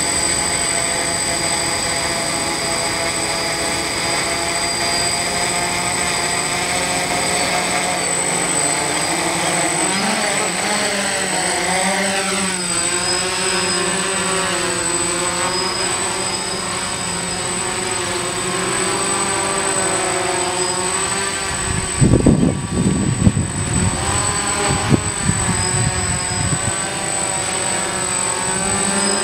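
Electric motors and propellers of a DJI hexacopter whining as it idles on the ground, then spinning up to lift off about ten seconds in; in hover the pitch of the whine keeps wavering up and down. For a few seconds about two-thirds of the way through, wind rumbles on the microphone.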